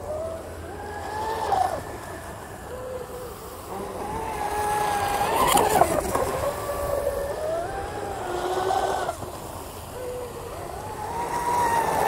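A Pro Boat UL-19 RC hydroplane's 2000 kV brushless motor whining as the boat runs laps at speed, its pitch rising and falling as it goes through the turns.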